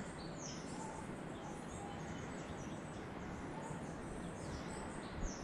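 Small birds chirping, many short high calls and quick downward sweeps, over a steady background hiss, with one brief knock near the end.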